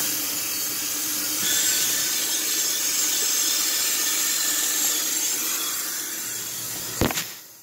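Kitchen tap running hot water into a cooking pot as it fills, a steady hiss, with a sharp knock near the end.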